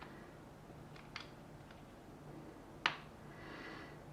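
A few small clicks from parts being handled during a teardown: two light ticks about a second in and a sharper click near the three-second mark, over a low steady hum.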